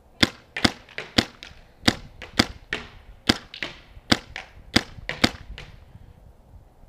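A paintball marker firing about fifteen shots in an uneven string, each a sharp crack, heard through the mask-mounted microphone with no windscreen. The shooting stops about a second before the end.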